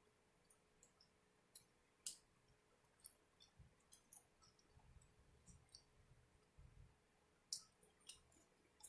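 Quiet eating sounds: scattered soft mouth clicks and small crunches of chewing, with a couple of sharper clicks standing out.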